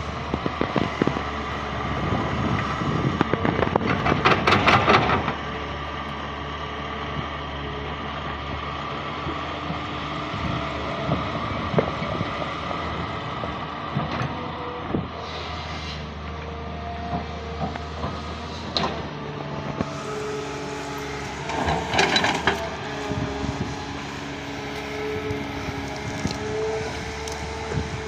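Caterpillar 320D hydraulic excavator's six-cylinder diesel engine running steadily under digging load, with bursts of clanking and scraping from the bucket and arm a few seconds in and again about three quarters of the way through, and a few sharp knocks between.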